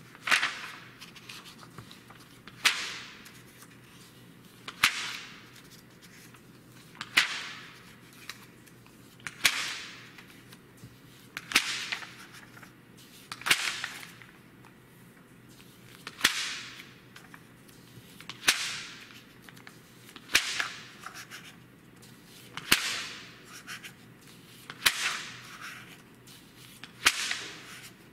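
Pages of a print magazine being turned by hand, about one every two seconds, each a sharp flick of paper followed by a short fading swish.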